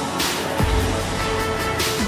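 Background electronic music with deep bass hits.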